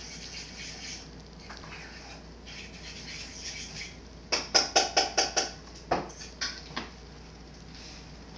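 Glass jar clinking on a wooden floor as a cat paws at it: a quick run of about six ringing clinks about halfway through, then three more, spaced out.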